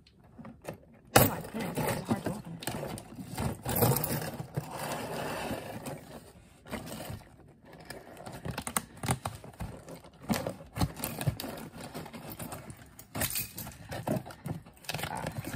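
A bunch of keys jangling as one key is scraped and jabbed along packing tape on a cardboard box to slit it open, with irregular scratching of tape and cardboard and scattered clicks; a sharp knock about a second in.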